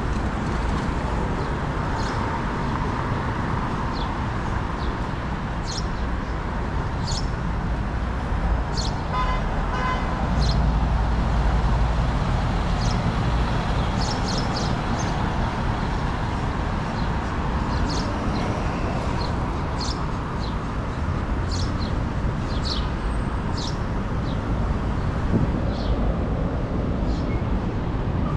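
City street traffic: a steady rumble of passing cars and trucks, swelling about ten seconds in as a heavy vehicle goes by, with scattered short high chirps throughout. About nine seconds in comes a short run of rapid beeps.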